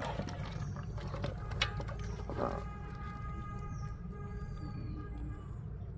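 Live catfish dropped into a bucket, knocking and slapping against it several times in the first couple of seconds, over a constant low rumble. After that a faint steady humming tone with several pitches runs for about three seconds.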